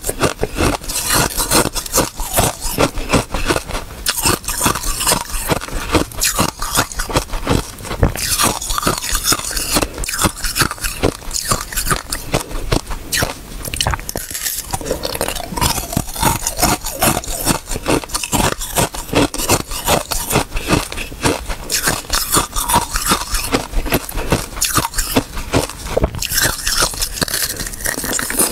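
Close-miked biting and chewing of a thin sheet of ice frozen with basil seeds: dense, continuous crunching and crackling.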